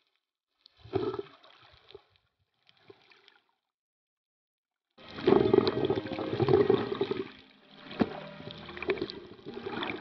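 Muffled water sloshing and gurgling against a waterproof compact camera held underwater: two short bursts in the first few seconds, then louder, steadier sloshing from about halfway, with a few sharp ticks.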